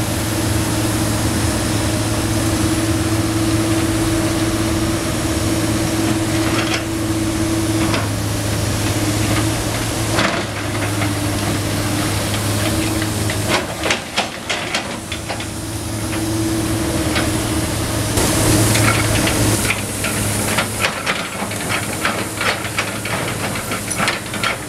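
Komatsu PC290 NLC excavator's diesel engine running steadily, with the hiss of a water hose spray over it. From about halfway on, rubble clatters and knocks sharply as the grapple works the debris.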